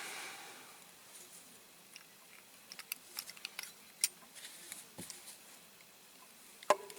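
Small, sharp clicks and taps of diecast metal model parts being handled and fitted together: the axles, wheels and baseplate of a toy truck. A soft hiss fades away during the first second, then the clicks come in irregular clusters, the loudest about four seconds in.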